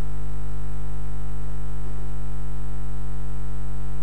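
Loud, steady electrical mains hum: a low drone with a buzzing stack of overtones above it, unchanging throughout.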